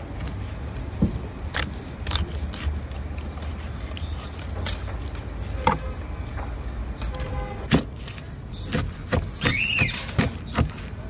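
Large knife chopping a whole carp on a wooden board: irregular sharp knocks as the blade cuts through rib bones and backbone and strikes the board, over a steady low background rumble.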